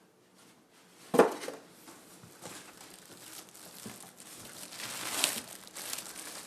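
Packing material in a cardboard box crinkling and rustling as it is handled and pulled out, with one sharp knock about a second in.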